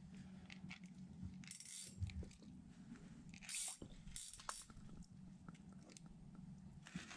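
Faint crunching of slush ice in an ice-fishing hole as a hand works in it while a walleye is being played: a few short crunches about two, three and a half and four and a half seconds in, over a low steady hum.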